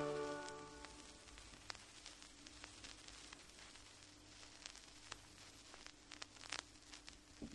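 The last pipe organ chord dies away in the first second, leaving the faint crackle and scattered clicks of vinyl record surface noise, with a few louder pops near the end.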